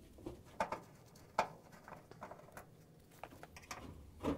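Phillips screwdriver backing out the screws that hold a dryer's front panel: a few sharp clicks and light taps of the tool and screws, with a louder knock near the end.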